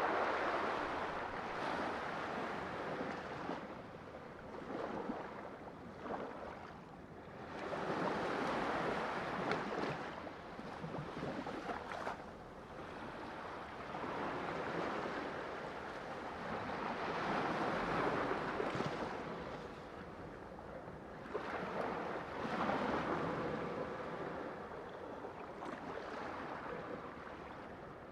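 Sea waves washing in and drawing back, a rushing noise that swells and fades in slow surges, about four times.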